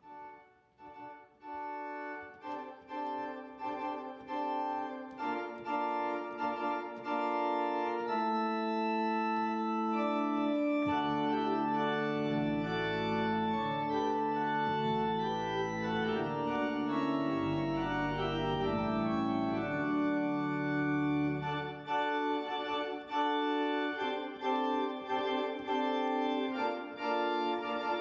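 Organ music: sustained chords that swell in from quiet over the first couple of seconds, with deep bass notes joining about a third of the way through and dropping out again before the end.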